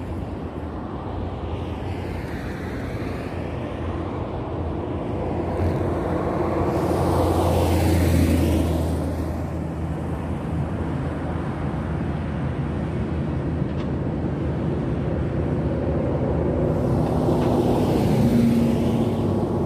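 Road traffic passing close by: one vehicle swells past, loudest about eight seconds in, and another builds up near the end, over a steady low traffic noise.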